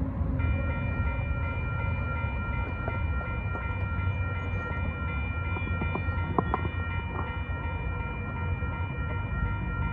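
Railroad crossing warning bell starting about half a second in and ringing steadily as the crossing activates for an approaching train, over a low rumble.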